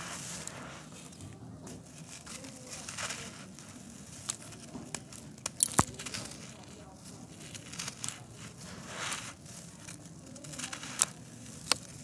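Bare hands crushing and crumbling a dry, gritty sand-cement disc: a steady gritty crunching and trickling of loose grit, with sharp cracks as pieces snap off, twice in quick succession near the middle and twice more near the end.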